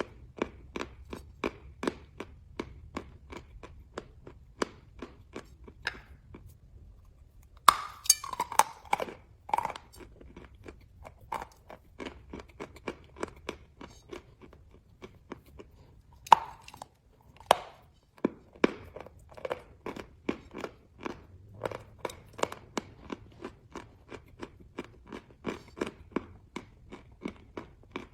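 Chalk being bitten and chewed close to the microphone: a steady run of crunchy chews, about two to three a second. Louder, sharper bites come about eight seconds in and twice around sixteen to eighteen seconds in.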